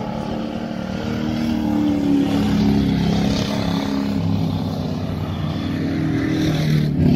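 Ford 302 V8 race cars at full throttle on a dirt track. The engine note rises and falls as they pass, loudest about two to three seconds in and again near the end.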